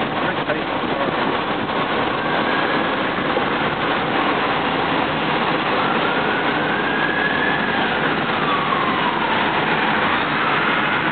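Inside the cabin of a 1975 BMW 2002 converted to electric drive with a NetGain Warp9 DC motor, on the move: a steady rush of road and wind noise with no engine sound, over a faint drivetrain whine that slides down in pitch about eight seconds in and rises again near the end as road speed changes.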